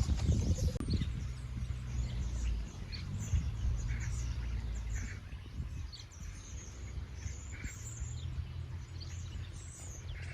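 Birds chirping and calling in short scattered notes over a steady low rumble.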